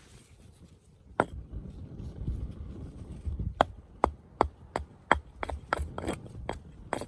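Husqvarna hatchet striking wood: one knock about a second in, then a quick run of light chopping strokes, about three a second, from halfway through.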